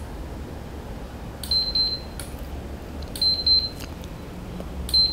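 Handheld infrared thermometer taking temperature readings: a trigger click and a short high beep, three times about a second and a half apart, with another click after each of the first two beeps.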